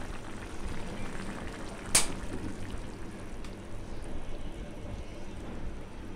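Chicken and mung dal curry bubbling in a pot on the stove, with one sharp knock about two seconds in.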